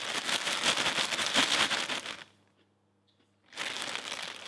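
Plastic packaging crinkling and rustling as a bagged packet of biscuits is handled. The crackle stops for about a second midway, then resumes.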